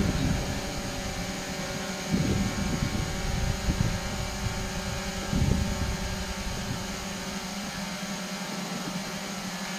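Steady background hum of a large sports hall, with a few irregular low rumbles.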